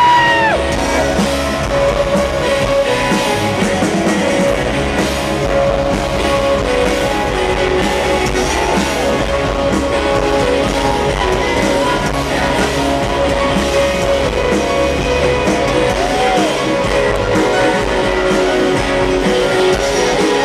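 Live rock band playing loud: electric guitars and drum kit, with a few short sung vocal lines.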